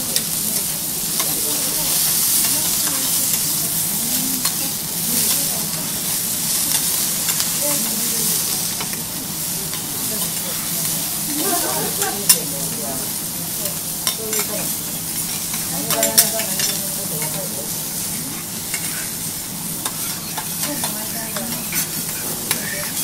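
Wagyu beef steaks searing on a hot teppanyaki griddle, sizzling steadily, with a few sharp clicks, the loudest about twelve seconds in.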